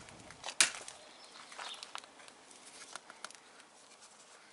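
Clicks and light taps of a long hex key working in the bar-end bolt of a motorcycle handguard, with one sharp click about half a second in and a few fainter ones after.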